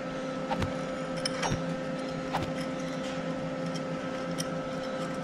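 A steady machine hum, with a few light, sharp clicks and taps over it.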